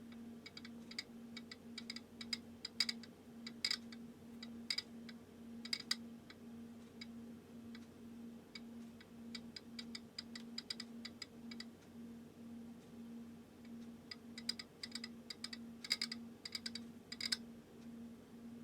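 Ampex VPR-3 video tape recorder's AST head drum clicking mechanically as it is turned slowly by hand, in two runs of rapid clicks with a quieter stretch between. The drum turns without friction, and the owner cannot tell whether the clicking is normal or a fault. A steady low hum pulses evenly underneath.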